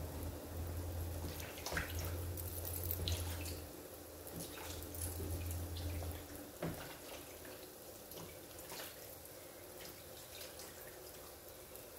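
Hot oil sizzling steadily in an electric deep fryer as balls of mikate dough fry, with scattered soft scrapes and clicks from dough being handled in a plastic bucket. A low hum runs underneath and stops about six and a half seconds in.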